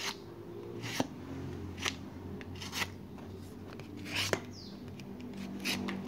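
Folding knife blade slicing a sheet of paper in short rasping strokes, about one a second, with a quick double stroke a little past the middle. The blade is not too sharp, so it rasps and tears through the paper rather than cutting it cleanly. A steady low hum sits under it.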